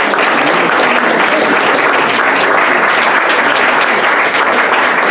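An audience applauding: loud, dense, steady clapping.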